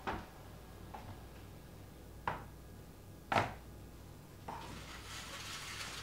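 Four separate knocks of dishes being handled and set down on a kitchen counter, the loudest about three seconds in, then a soft rustling scrape near the end.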